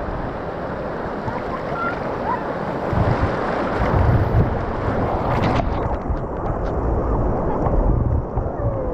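Whitewater of a river rapid rushing and churning right around an inner tube, with heavy low buffeting on the microphone that gets stronger from about three seconds in. About halfway through, the high hiss drops away suddenly, leaving a duller rush with scattered small clicks and splashes.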